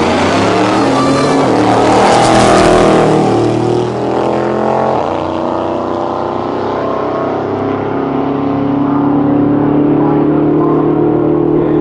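Two Ford F-150 pickup trucks launching and running side by side at full throttle down a drag strip, engines climbing in pitch. Loudest about two to three seconds in as they pull away, with a brief dip near five seconds, then growing more distant down the track.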